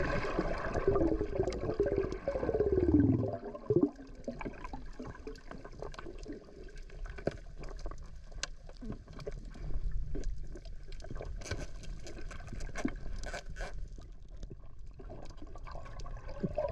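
Underwater sound heard through a diver's camera: a bubbling gurgle with falling pitch sweeps for the first few seconds, then a steady low rumble scattered with many sharp clicks.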